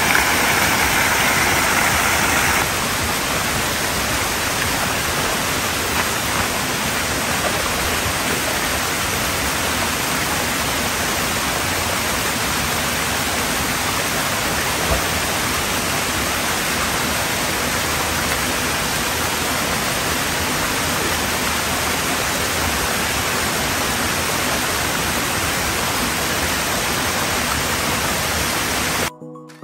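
Water pouring over a low concrete weir into a shallow river pool: a steady rushing noise, louder for the first couple of seconds, cutting off just before the end.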